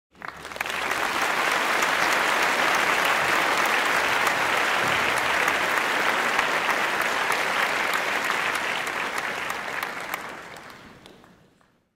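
Crowd applause sound effect, many hands clapping, starting abruptly and fading out near the end. It greets the reveal of a correct quiz answer.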